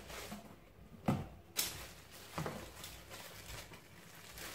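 Unpacking sounds: a stainless steel kit and its plastic wrapping handled out of a cardboard box, giving a few light knocks and rustles, with the sharpest clicks about a second and a second and a half in.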